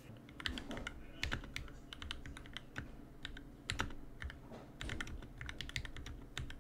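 Fast typing on an NK65 Entry Edition mechanical keyboard with lubed, filmed Durock L2 linear switches: a quick, uneven run of key clacks that starts just after the beginning.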